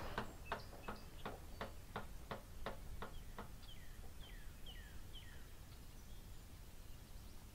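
Faint outdoor sounds: a run of about ten evenly spaced clicks, roughly three a second, fading out after about three seconds. Then a bird calls with a few short chirps that slide downward in pitch, over a low, steady rumble.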